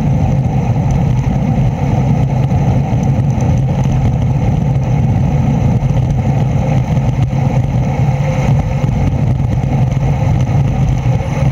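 Steady running noise of a two-wheeled vehicle ridden along a road: a constant low hum under an even rush of road and wind noise.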